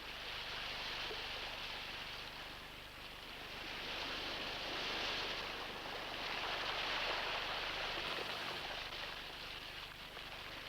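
Surf washing up on a beach: a steady hiss that swells and fades every few seconds as waves break and run up the sand.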